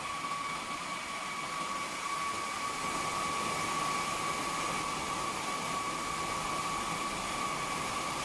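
Cooling fans of a 5 kW air-cooled load bank running steadily: an even rush of air with a steady whine.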